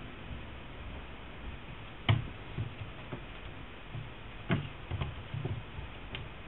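Soft thumps and taps of kittens' paws landing and scrambling on a tabletop as they play-fight: one sharp knock about two seconds in, the loudest, then a scatter of lighter thuds, over a low background hum.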